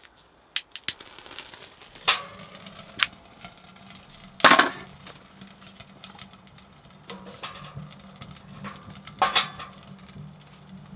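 Scattered clicks, knocks and short rustling bursts as wood is loaded into a small stainless-steel camping wood stove, over a faint steady low hum; the loudest burst comes about halfway through.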